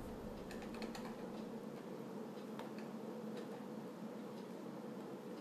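Light, scattered plastic clicks and taps from small action-figure parts being handled and fitted together.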